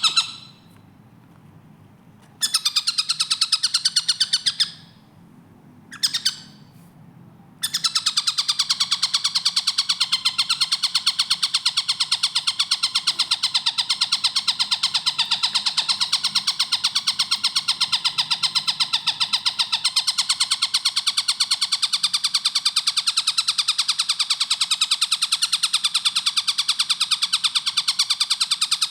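Tengkek buto kingfisher calling in long runs of very fast, tightly repeated shrill notes. The runs stop twice in the first eight seconds, then go on without a break.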